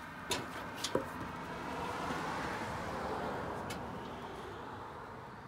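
Two clunks as a person steps up onto the metal frame of an old forklift and settles into the seat, then a smooth whoosh that swells and fades over a few seconds. No engine is running.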